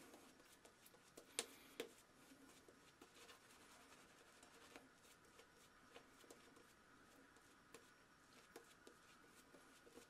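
Faint scratching and crackling of a Razorock boar-bristle shaving brush working lather over a stubbled face, with two sharper clicks about a second and a half in.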